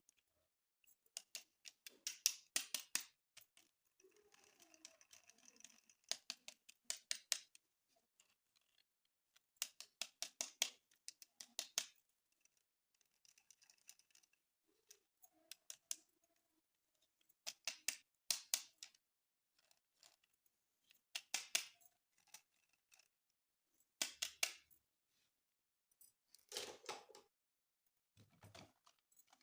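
Short bursts of rapid clicking and rattling, about every three seconds, from small hard plastic pieces being handled.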